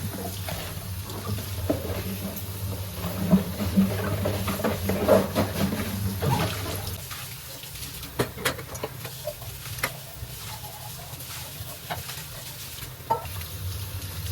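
Household clatter: objects clinking and being handled over a steady low hum, which stops about halfway through, then a few scattered light clicks.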